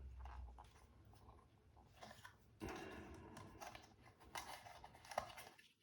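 Faint handling sounds of a plastic pistol grip tripod: light rubbing and small clicks as a camera extension is screwed onto its quarter-inch mount.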